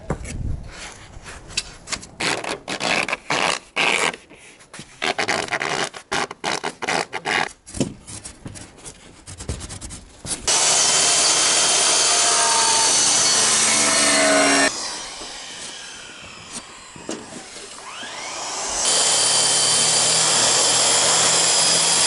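Rigid foam insulation boards being handled and set down, with irregular scraping and knocking. From about ten seconds in, a corded circular saw cuts through the foam board in two long, loud, steady cuts, with a quieter pause between them.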